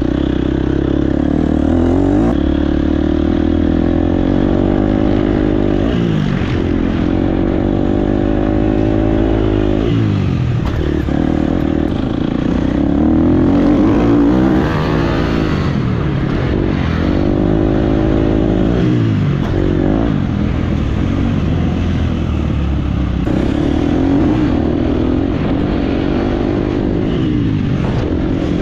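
Dirt bike engine revving up and down on a motocross track, its pitch climbing and dropping again and again every few seconds as the throttle is opened and shut.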